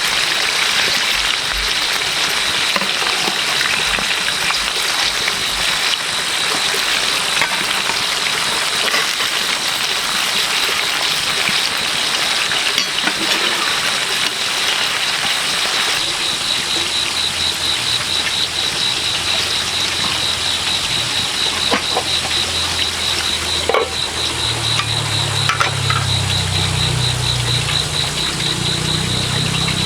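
Rushing water with a steady high whine over it, and a small engine running underneath from about halfway through, getting louder near the end.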